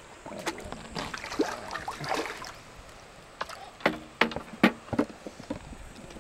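Water splashing as a hooked herabuna thrashes at the surface and is drawn in to be landed, with a run of sharp splashes and knocks about four to five seconds in.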